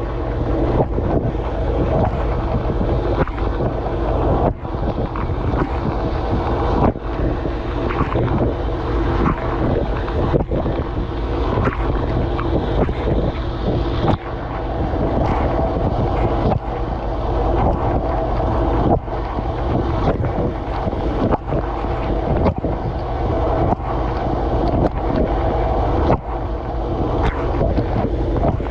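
Dishwasher running mid-cycle, heard from inside the tub: water spraying and splashing over the dishes over a steady low pump hum, with short dips about every two and a half seconds as the spray pulses.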